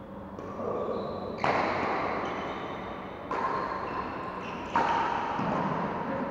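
A shuttlecock struck back and forth with badminton rackets in a rally: four sharp hits about one to two seconds apart, each echoing around the hall.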